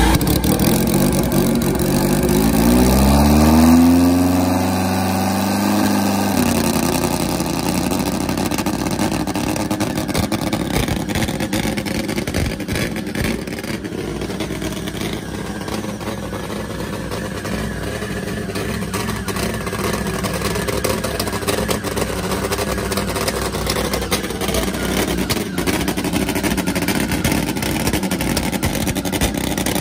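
A Top Fuel nitro drag motorcycle engine running. It revs up over the first few seconds, with the loudest point about four seconds in, then drops back to a loud, steady idle.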